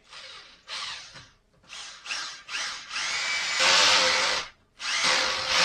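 Corded electric drill driving a screw into a timber frame, run in several short stop-start bursts with the motor speeding up, then a longer, louder run. It stops briefly and runs once more near the end.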